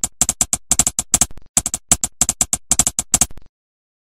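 Typing sound effect: quick, uneven clicks, several a second, that stop about three and a half seconds in.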